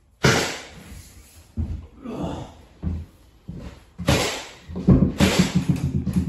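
Click-lock floor planks being laid and knocked into place on a subfloor: a few separate knocks, then a quick run of knocks near the end.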